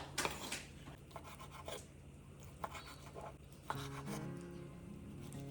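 Light scraping and tapping of food preparation over soft background music; a plucked guitar melody comes in clearly about four seconds in.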